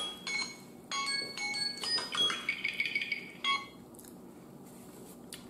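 Electronic chime melody of quick, high, bell-like notes from a phone going off, which stops about three and a half seconds in.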